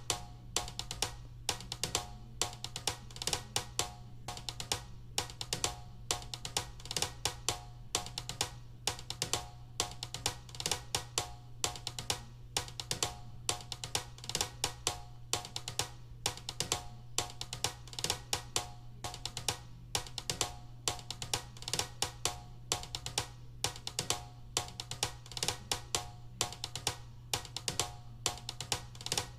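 Background music with a steady drum beat: evenly spaced snare and kick hits over a sustained low bass tone.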